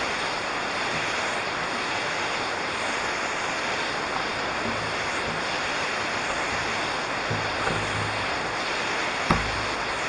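Steady rushing of a waterfall below, with a single thump near the end.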